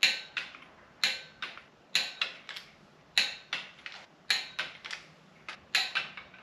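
Click-type torque wrench ratcheting as timing cover bolts are tightened to 18 foot-pounds: a sharp metallic click about once a second, each followed by a few lighter ticks.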